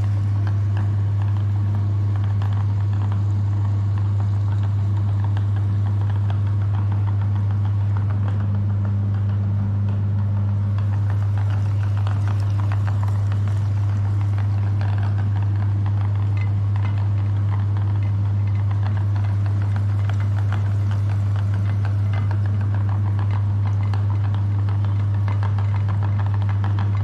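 Electric meat grinder running steadily: a constant low motor hum with a faint rattle.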